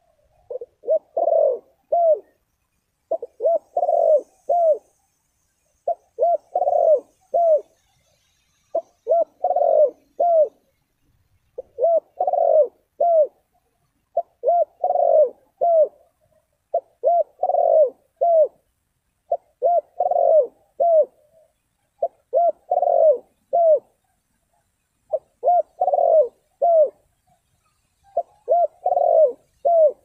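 Spotted dove cooing its song: a phrase of several deep coos repeated about every two and a half to three seconds, some eleven times.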